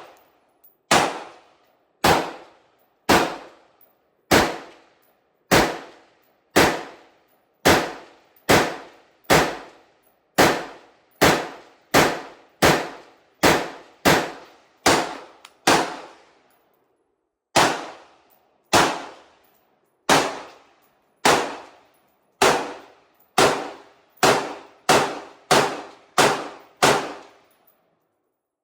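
AR-15 rifle with a BCM 16-inch upper firing 5.56 mm rounds in steady semi-automatic fire, about two dozen shots, each ringing out briefly. The shots come roughly one a second, pause once a little past halfway, then quicken to nearly two a second before stopping.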